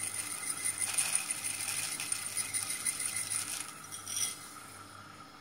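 Dry homemade egg noodles (erişte) poured from a glass bowl into a pot of boiling water: a dense rattling patter as they slide out and drop in. It stops about three and a half seconds in, then comes once more briefly with a last shake of the bowl, leaving the soft bubbling of the water.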